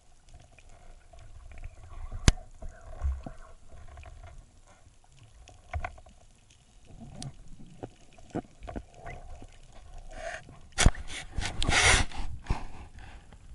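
Underwater handling noises from a speargun and a speared fish: scattered sharp clicks and knocks, a sharp click about two seconds in, and a louder cluster of knocks with rushing noise from about eleven to twelve and a half seconds.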